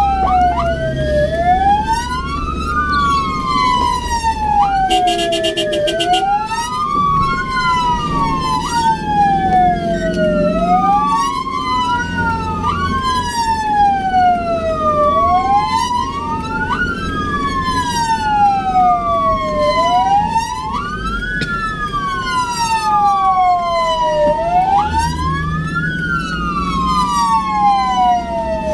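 Ambulance electronic siren sounding in wail mode, its pitch sweeping up and down about once every three seconds, with the vehicle's engine running underneath. A brief horn blast cuts in about five seconds in.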